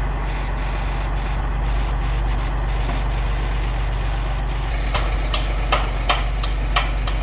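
Heavy machine's engine idling steadily. From about five seconds in, a run of sharp clicks comes at about three a second.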